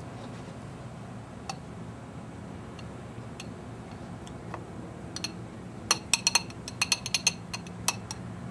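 A metal spoon clicking against a small cup while scooping yogurt out: a few scattered ticks, then a quick run of about a dozen sharp clicks near the end, over a steady low hum.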